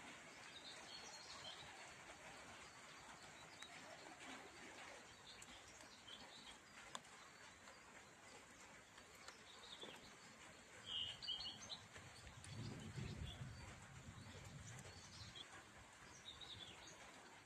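Quiet rural ambience with faint, scattered bird chirps, the clearest about two-thirds of the way through, over a steady faint hiss. A brief low rumble rises and fades just after the clearest chirps.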